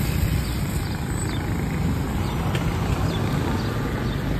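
A motorcycle riding along a street: a steady engine and road rumble, with wind noise on the microphone, as other motorcycles pass.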